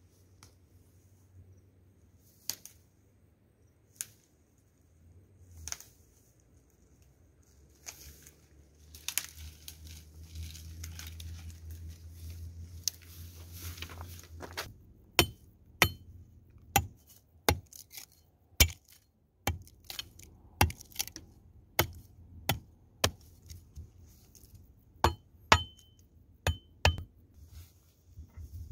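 A knife chopping in sharp, single strikes about one a second through the second half, some with a brief metallic ring. Before that come a few scattered knocks and several seconds of steady noise.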